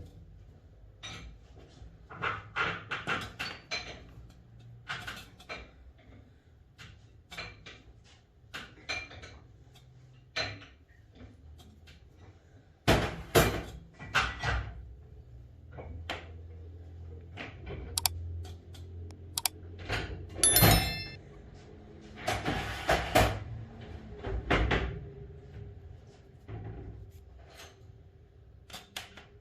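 Scattered knocks and clinks of tools and metal injector parts being handled on a workbench, in irregular clusters, one of them ringing briefly.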